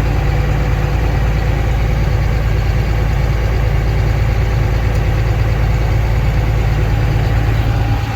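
Heavy farm-machine engine running steadily: a constant low rumble with a steady hum.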